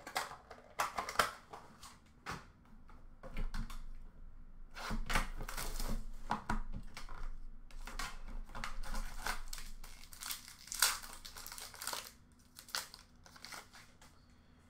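Crinkling and tearing of a hockey card box's wrapping as it is opened, with the cardboard box and cards being handled. Irregular rustles and clicks, busiest through the middle stretch.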